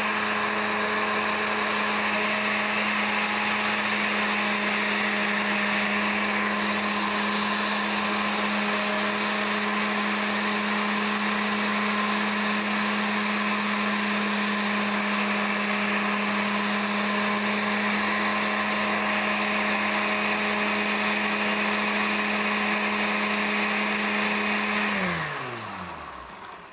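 Small countertop blender running steadily as it purees spinach in olive oil, lemon juice and water into a smooth dressing. About 25 seconds in it is switched off and the motor's pitch falls away as it spins down.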